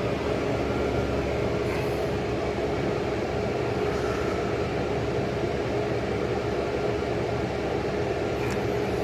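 A 35-year-old General Electric Carry Cool window air conditioner running steadily, a constant hum with a steady tone under its fan noise.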